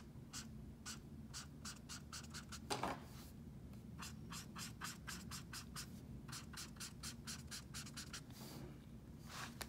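Ohuhu alcohol marker's nib scratching across sketchbook paper in many quick short strokes, laying a light layer of colour over a portrait's skin.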